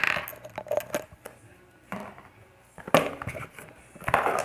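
Slime being squeezed and worked by hand: irregular bursts of sticky clicking and crackling, about one burst a second.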